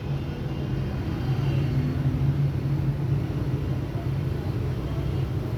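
Toyota Prado's engine idling steadily, a low even hum.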